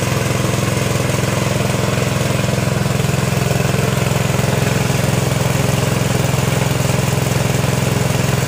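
Small petrol engine running steadily, driving a cable winch through a roller chain while the drum winds in steel wire rope.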